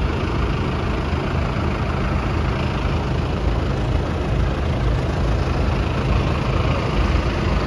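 Several diesel tractor engines idling steadily together, a continuous low rumble.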